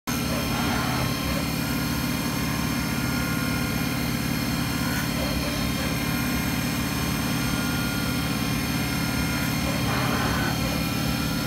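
CNC milling machine running steadily: a constant low hum with several steady whining tones above it.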